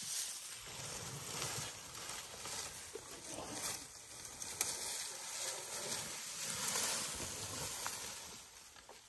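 African elephant browsing a leafy bush with its trunk: leaves and branches rustling and shaking in irregular swells, with a few sharp twig cracks.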